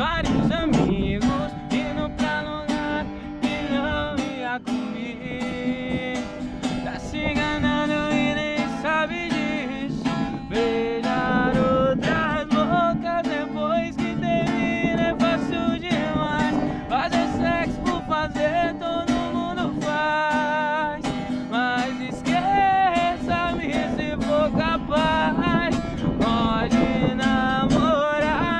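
A man singing, accompanied by an acoustic guitar strummed steadily.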